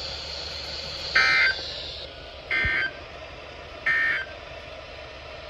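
Three short bursts of the EAS end-of-message data signal, a buzzy two-tone digital chirp, about 1.4 s apart over steady radio hiss. The bursts signal the end of the severe thunderstorm warning message on NOAA Weather Radio.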